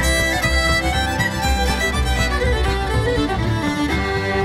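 Background music: a fiddle tune with a steady beat in the bass.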